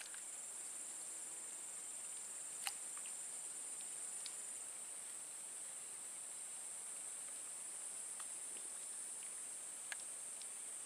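Steady high-pitched buzz of insects, with a couple of faint clicks, one a few seconds in and one near the end.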